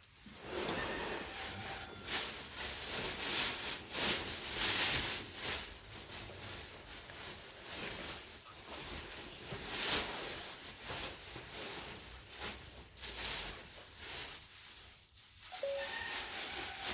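Irregular rustling and rubbing noise from something being handled, rising and falling in short swells.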